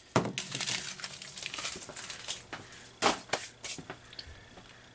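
Duct tape being handled and crumpled, crinkling and crackling irregularly with a few sharp snaps.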